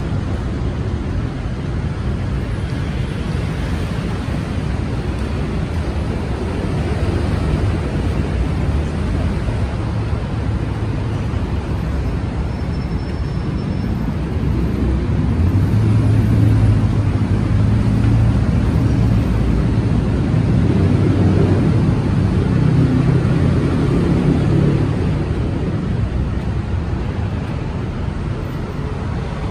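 Steady road traffic rumble from a busy intersection. A heavier engine hum swells about halfway through and fades again a few seconds later.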